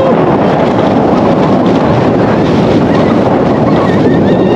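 Loud, steady rush of wind buffeting the microphone of a rider on a moving roller coaster, with faint cries near the end.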